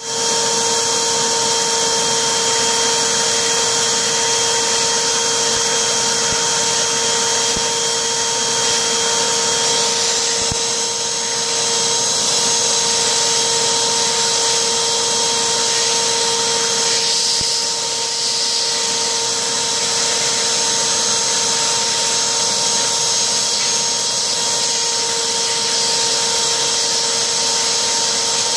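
Vacuum cleaner running through its hose with the nozzle drawn over a cat's fur: a steady motor whine over the rush of air, the tone shifting slightly a couple of times as the nozzle moves.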